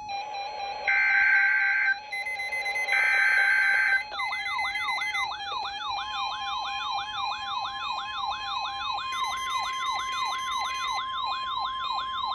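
Emergency Alert System test tones: two one-second bursts of screeching SAME data header over a steady background tone, then a fast repeating falling siren-like sweep, about three a second. About six seconds in, a steady weather radio alert tone near 1 kHz joins the sweep.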